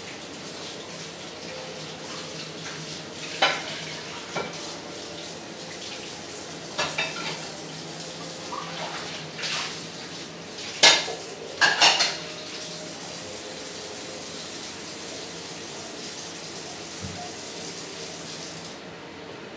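Dishes and metal utensils clinking and clattering a few times, loudest in a quick cluster about 11 to 12 seconds in, over a steady hiss that stops near the end.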